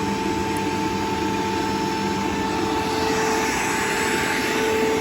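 Bissell vacuum cleaner running steadily on a sandy porch floor: a motor whine over a rushing airflow hiss, the hiss growing brighter about three seconds in.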